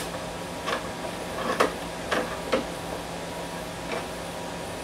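Faint clicks and scrapes of a hex key and fingers working the long screws out of the blank plate on a Festool CT26 dust extractor's plastic housing: about five light, irregularly spaced ticks.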